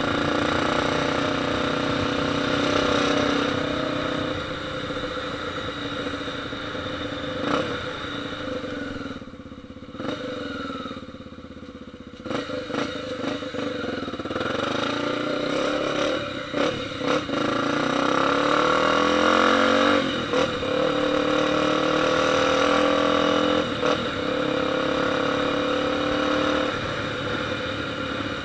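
Motorcycle engine running and revving, its pitch rising and falling, with a few sharp pops. It drops quieter for a few seconds about a third of the way through.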